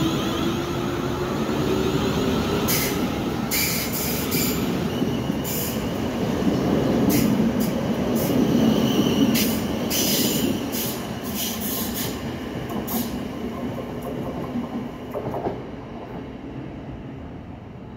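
South Western Railway electric multiple unit, with Class 450 Desiro coaches, pulling out past the platform. Its traction motors whine upward at first, under the steady rumble of the wheels on the rails, with repeated short high squeals and clicks from the wheels. The sound fades about fifteen seconds in as the last coach draws away.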